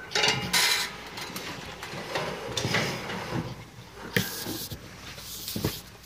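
Irregular rustling and scraping of handling and movement, with a couple of sharp knocks in the second half.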